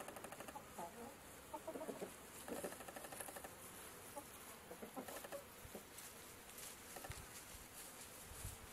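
Chickens clucking faintly: scattered short calls, with a couple of runs of quick, rapidly pulsed clucks.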